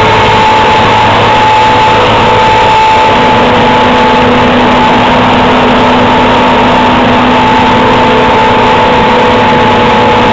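John Deere 2256 combine harvester working through soybeans: its diesel engine and threshing machinery run loud and steady, with a steady high hum over the din.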